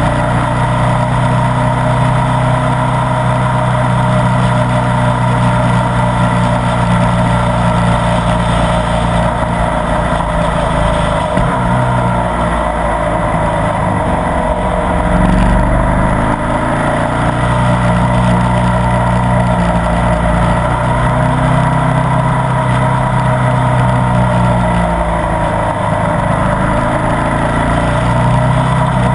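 Ducati Multistrada 1200 S's V-twin engine running steadily under way, its engine speed dropping and picking up again about twelve seconds in and again near the end, over a steady rush of wind and road noise.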